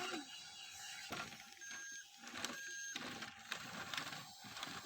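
Small electric motor and plastic gears of a mini remote-control toy whirring.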